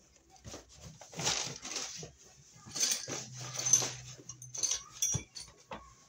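Cordless drill-driver driving screws to fasten a metal electrical box, with the motor running steadily for about a second midway, amid several short rattles and knocks.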